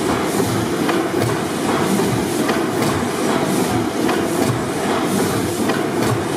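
A 600 HP Snow four-stroke, double-acting gas pipeline compressor engine running, with a steady, rhythmic clatter about twice a second over a low rumble.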